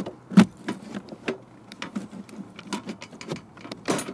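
Light clicks and small knocks of a used cabin filter's frame being handled and set down on the car's floor mat, with one sharper knock about half a second in and another near the end.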